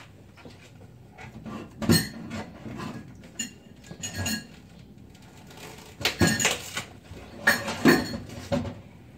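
Dishes and bowls clattering and clinking as they are handled, in several bunches of sharp knocks, the loudest about two seconds in and again near the end.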